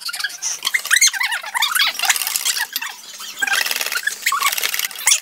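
Wire whisk beating a cream mixture in a stainless steel bowl, the wires scraping and squeaking against the metal in quick strokes.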